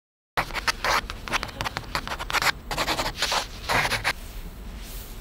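A rapid series of short scratching, rubbing strokes for about four seconds, then only a faint steady hiss.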